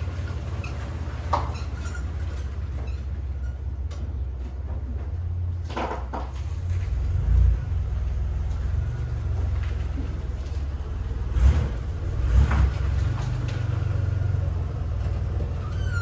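2004 Chevrolet Impala LS's 3.8-litre V6 running at low speed as the car creeps forward, a steady low rumble. A few dull thumps come in the second half.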